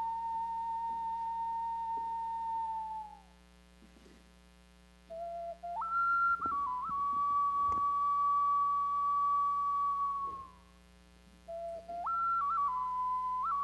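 A small hand-held flute played solo, with a pure, almost overtone-free tone. It plays three phrases, each stepping up from a lower note to a long held note that sags slightly at its end. The first phrase ends about three seconds in, the second runs from about five to ten seconds, and the third starts near the end.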